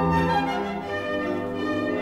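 Classical orchestral music for a ballet solo, with violins and other bowed strings carrying a sustained, slow melody.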